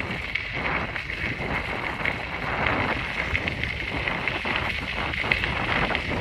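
Wind rumbling on the microphone while a cyclist rides along: a steady, even noise with no distinct events.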